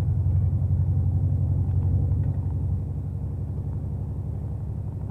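Steady low drone of a Mercedes-Benz truck's diesel engine and road noise, heard from inside the cab while driving. It eases off a little about two and a half seconds in.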